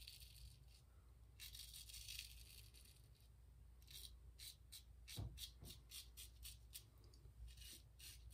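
Single-edge Ever Ready 1914 safety razor scraping through lathered stubble, faint. One longer stroke comes about a second and a half in, then from about four seconds in a quick run of short strokes, about three a second.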